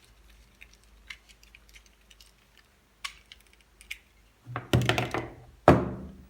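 Light clicks and ticks of wires and small electrical parts being handled, then two louder knocks near the end.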